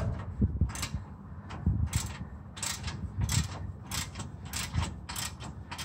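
Half-inch Craftsman hand ratchet with a 14 mm socket clicking in a steady run, about three clicks a second, as it is swung back and forth to back off an exhaust bolt that has just broken loose.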